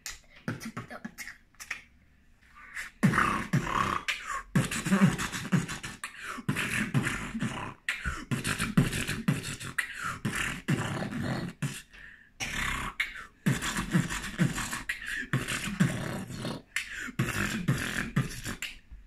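A boy beatboxing: a dense, fast run of vocal kick-drum thumps and clicking snare and hi-hat sounds with a few short breaks. It starts in earnest about three seconds in, after a handful of scattered clicks.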